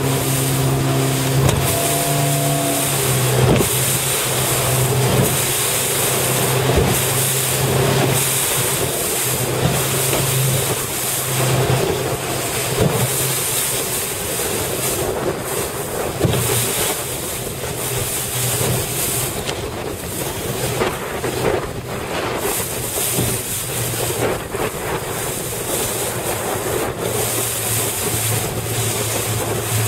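A motorboat's engine running with a steady low drone that fades out for stretches and comes back, under strong wind buffeting the microphone.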